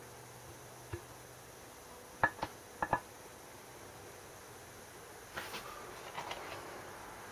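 Small metal carburettor parts being handled on a bench: a light tick about a second in, two pairs of sharp clinks around two and three seconds in, then softer ticking and rustling near the end.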